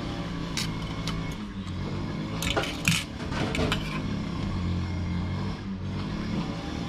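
Cutlery and dishes clinking: a few sharp clinks about half a second in, then a cluster a little before halfway, over a steady low hum.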